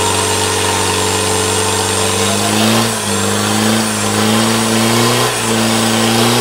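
Diesel 4x4 drag truck's engine idling steadily, then revved a few times from about two and a half seconds in, the pitch climbing and dropping back with each rev.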